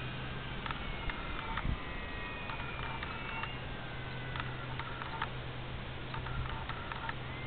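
Electric motor and propeller of a radio-controlled FMS Sbach 342 aerobatic plane whining in flight, its pitch sliding slowly up and down as it moves about the sky. Over a steady low hum and scattered clicks.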